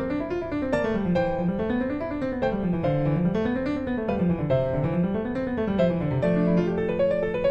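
Background piano music: a flowing melody of rising and falling runs over steady held notes.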